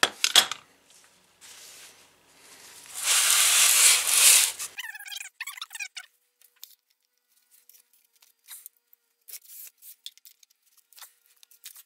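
Workshop handling noises: a couple of knocks at the start, then a loud rustle of paper towel about three seconds in, followed by a run of short squeaks as the towel rubs on the power steering pump housing. Scattered light clicks and taps of handling the pump and tools follow.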